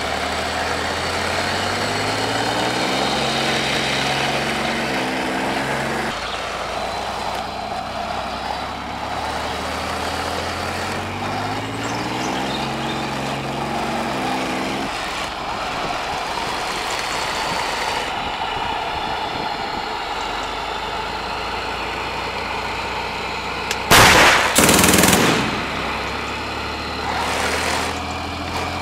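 1:16 Leopard 2A6 RC tank's sound-effects unit playing a tank-engine sound that revs up in steps and drops back as the tank drives. Late on, a loud gun-firing effect sounds in two quick blasts.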